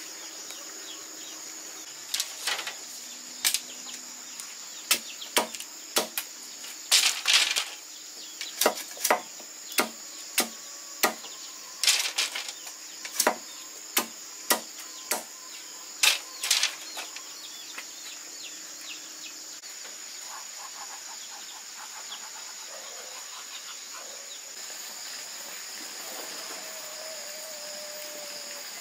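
A knife chopping on a wooden log block: about twenty sharp strikes, roughly one a second and sometimes in quick pairs, that stop a little over halfway through. Insects drone steadily throughout.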